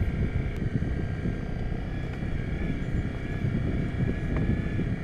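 Honda CRF250 Rally's single-cylinder engine running under engine braking on a downhill dirt track, with an uneven low rumble and wind noise on the microphone.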